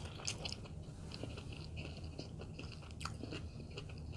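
A person chewing a mouthful of crispy fried chicken sandwich: faint, scattered crunches and mouth clicks, with one sharper click about three seconds in.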